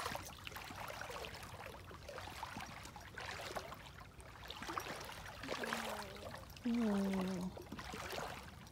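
Feet wading through shallow floodwater: soft, continual sloshing and small splashes. Two short voiced hums from a person break in about two thirds of the way through, the second one louder.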